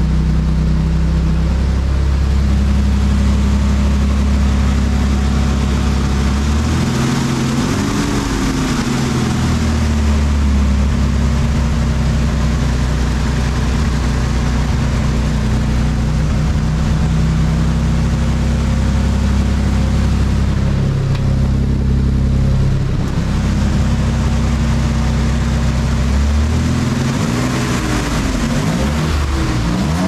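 Nissan 300ZX (Z32) VG30DE V6 engine idling steadily after an injector swap meant to cure a misfire. It is revved up and back down about seven seconds in, then blipped several times in quick succession near the end.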